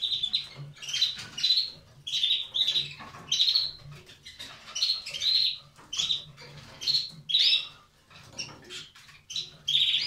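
Caged canaries giving short, sharp chirps, one or two a second, some rising and falling quickly in pitch.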